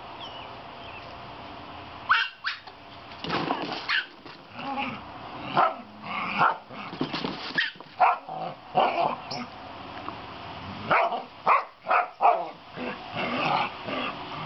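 Dogs barking in play, a Chihuahua-Maltese puppy with a Chow-Rottweiler mix: a run of short, sharp barks and yips starting about two seconds in, a lull around ten seconds, then a quick cluster of barks.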